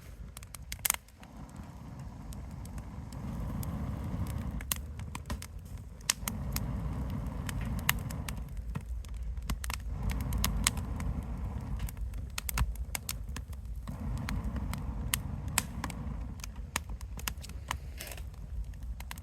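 Wood fire crackling, with many sharp pops and snaps over a low rushing sound that swells and fades every few seconds.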